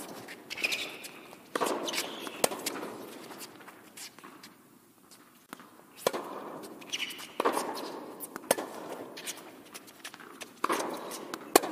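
Tennis rally on an indoor hard court: a series of sharp racquet-on-ball cracks and ball bounces, each echoing through the large indoor hall, with the players' footsteps and shoe shuffles between shots.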